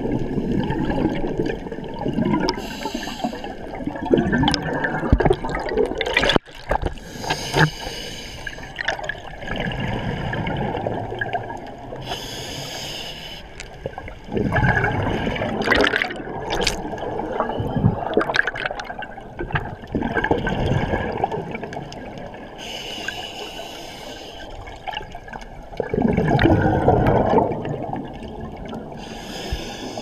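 Scuba diver breathing through a regulator, heard underwater: repeated hissing inhalations alternating with louder bubbling exhalations, over a steady low rush of water.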